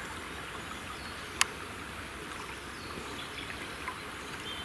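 Steady rush of flowing stream water, with a single sharp click about a second and a half in.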